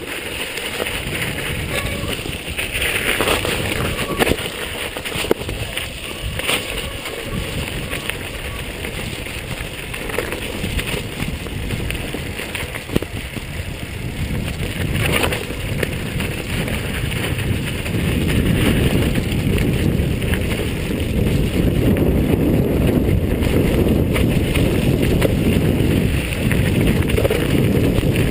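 Mountain bike riding over a snowy, rocky dirt trail: steady rumble of the tyres and rattle of the bike, picked up by a handlebar-mounted camera, with occasional sharp knocks. It gets louder and heavier about two-thirds of the way through.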